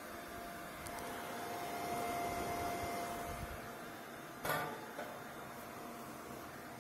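Small internal cooling fan of an opened IGBT inverter welding machine running: a steady whir with a constant hum tone, loud for its size. A knock comes about halfway through, with a lighter one just after.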